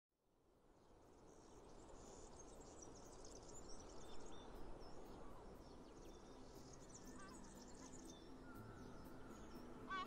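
Bird chirps and calls over a soft, steady hiss of outdoor ambience fading in, with low held music notes entering about halfway through.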